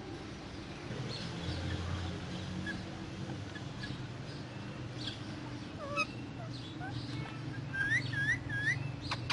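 Parrots chirping faintly over a steady low background hum, then three short, louder curling calls in quick succession near the end.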